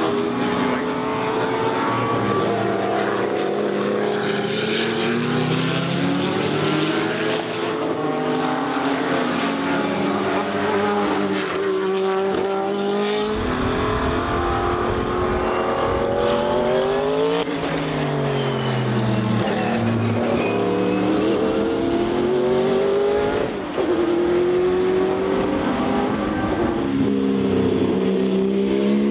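Turbocharged race car engines at high revs, pitch climbing and dropping through repeated gear changes, over several passes with a sudden change about halfway through and again near the end.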